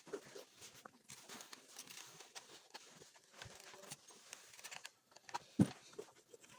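Faint rustling and soft scuffs of an electric clothes iron sliding over embroidered cloth on a padded table, with hands smoothing the fabric, and one louder thump near the end.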